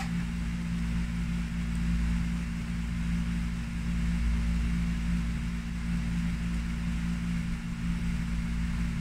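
A steady low mechanical hum with a constant pitch.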